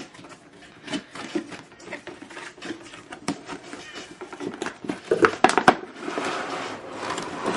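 Cardboard and plastic packaging being handled and opened: rustling, crinkling and sharp clicks, loudest a little after five seconds in, then a steady sliding rasp as the inner box is drawn out near the end.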